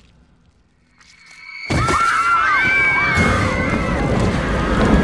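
A hush, then less than two seconds in a sudden loud burst: fire flaring up as a man is engulfed in flames, with many voices screaming over it.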